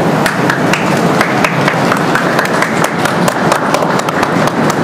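Murmur of a crowd on a station platform, with many sharp clicks scattered irregularly through it.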